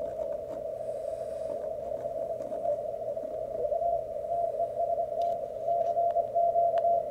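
HF transceiver's receiver audio while tuning across the 20-metre CW segment: band-noise hiss squeezed through a narrow CW filter, with a few faint clicks. Near the end a string of short Morse-code tone pulses comes through at the same pitch.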